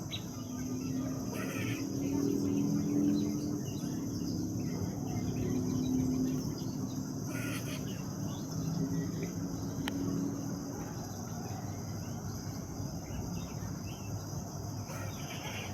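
Steady high-pitched insect trilling, crickets, with a low droning tone underneath for the first ten or so seconds.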